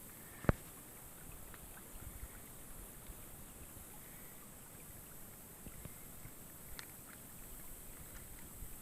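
Quiet riverside ambience: a faint, steady hiss of water and air, broken by one sharp knock about half a second in and a few faint ticks later on.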